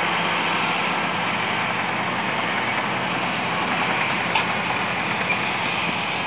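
Komatsu D155AX bulldozer's diesel engine running steadily as it works, a constant drone with a faint low hum, and a single clank about four seconds in.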